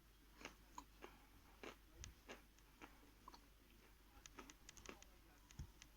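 Faint crunching and clicking of a person chewing chalk, scattered through with a quicker run of small clicks about four to five seconds in.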